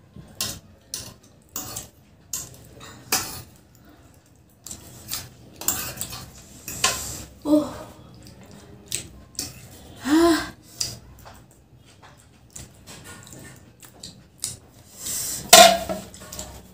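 Metal forks clicking and scraping on plastic plates as two people eat, in short, irregular clatters. The loudest clatter comes near the end.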